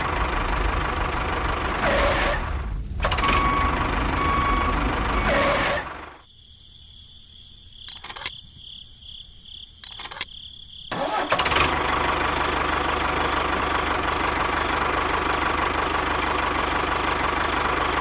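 Tractor engine running steadily. It drops away for about five seconds in the middle, where two short clicks are heard, then runs on again.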